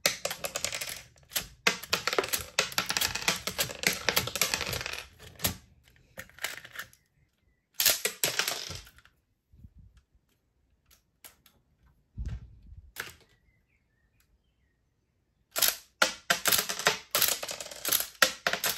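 LEGO blowback pistol mechanism cycling by hand: bursts of rapid plastic clacking from the brick slide and action, with ejected LEGO shell pieces flying out, separated by quiet gaps. The longest burst runs about five seconds at the start, with shorter ones around eight and twelve seconds and another run near the end.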